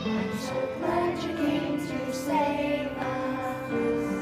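A group of young children singing a song together over instrumental accompaniment.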